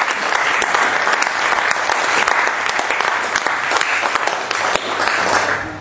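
Audience applauding, a dense patter of many hands clapping that dies down just at the end.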